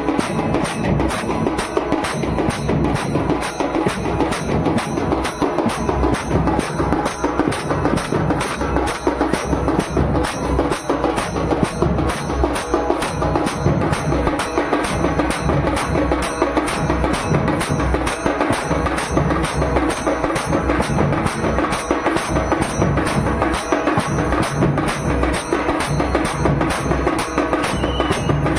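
Dhol drums beating a steady rhythm with the small brass cymbals of lezims jingling and clashing in time as the sticks are swung.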